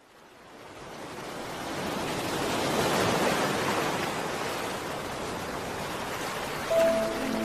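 Steady rush of sea water, like surf or waves washing, fading in over the first two seconds. Music comes back in near the end.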